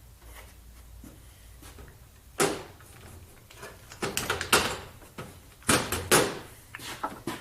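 Metal tools being handled and clanking: a few separate sharp knocks and clatters, the loudest about two and a half, four and six seconds in.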